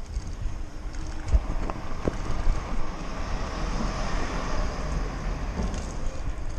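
Wind buffeting the microphone and road rumble from a Lime hire bike being ridden along a pavement, with a few sharp knocks, one about a second and a half in and another near two seconds.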